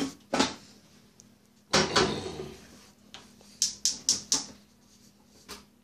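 Household rummaging: separate knocks and clunks of things being handled, the heaviest about two seconds in, then a quick run of four clicks around four seconds in, like a cupboard or drawer being searched.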